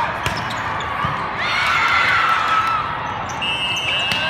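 Indoor volleyball game: sneakers squeak on the court floor and the ball thuds a few times, over a steady murmur of crowd noise in a large hall.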